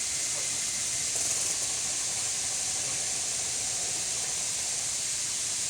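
Water treatment plant equipment running with a steady high hiss that does not change.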